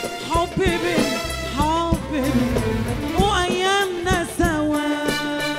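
A woman sings live into a microphone in a sliding, ornamented melody, backed by a Moroccan popular-music band with hand drums and a tambourine. Near the end her voice gives way to a held instrumental note over the drumming.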